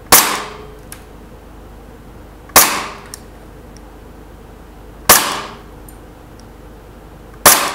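Umarex H&K VP9 gas blowback airsoft pistol firing on green gas. Four single shots about two and a half seconds apart, each a sharp crack that dies away quickly.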